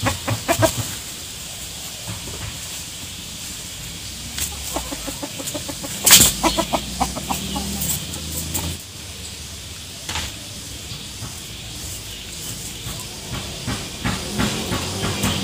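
Chickens foraging in dry leaf litter: short clucks and rustling, crackling leaves. About six seconds in there is a sudden loud crackle, followed by a quick run of clucks.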